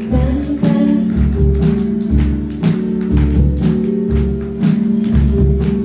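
Live band music played through a PA system: drum kit, bass and guitar playing an instrumental passage with a steady beat.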